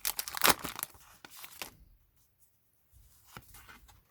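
Foil Pokémon booster pack crinkling and tearing as it is opened, for about the first two seconds, then a few soft rustles of the cards being handled.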